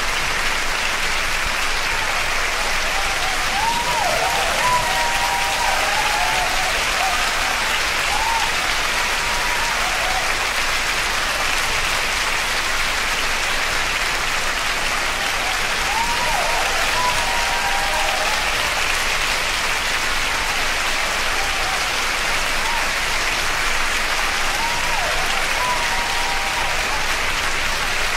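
Concert audience applauding steadily at the end of a live song, with a few voices rising above the clapping now and then.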